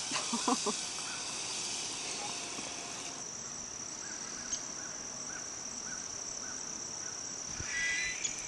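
Steady high-pitched insect chorus, with an extra hiss over it that stops about three seconds in and a few short, faint chirps.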